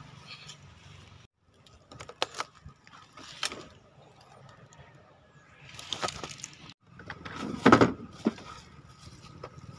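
Handling noises from a Honda Click scooter: scattered clicks and knocks as its seat is lifted over the under-seat storage and the bike is moved, the loudest knocks coming about three-quarters of the way through. The engine is not running.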